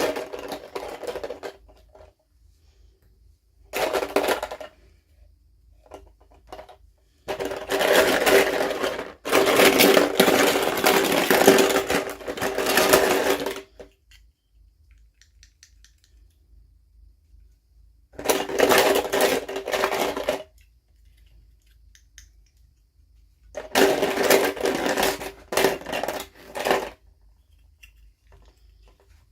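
Toy packaging being handled and opened, crinkling and rustling in bursts of a second or several, with quiet pauses between; the longest run comes about seven to fourteen seconds in.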